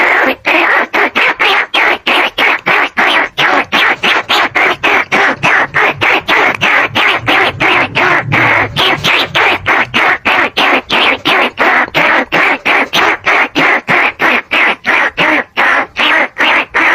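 Rat lure call: a rapid string of short, shrill rodent squeaks, about four a second, played back to draw in bandicoot rats and rice-field rats.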